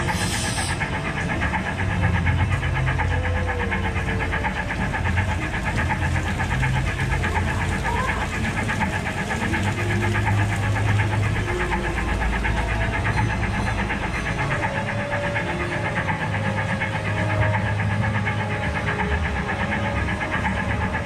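Small amusement-park ride train running along its track: a steady rumble and rattle of wheels and drive, heard from the front of the train.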